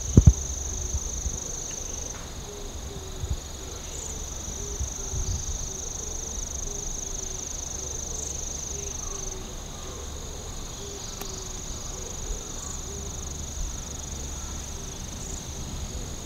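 Insects trilling in a steady, high-pitched chorus that runs on almost without a break, with a faint low rumble underneath.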